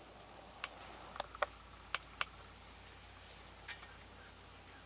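Faint, sharp clicks, about six scattered over a few seconds, several of them in the first half, over a quiet, steady background.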